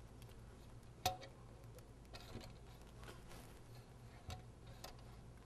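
Light metal clicks as the shaft of a multi-cup liquid sampler slides down through the slots of its metal cups. One sharper click comes about a second in, then a few softer ticks.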